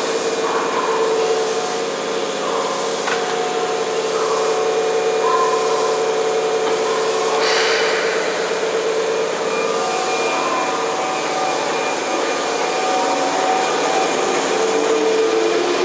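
Keihan 6000 series electric train at an underground platform, with a steady hum under it all. About halfway through a short burst of compressed-air hiss comes as the doors shut and the train readies to go. Then the train starts to pull away, its motor whine setting in and rising in pitch near the end.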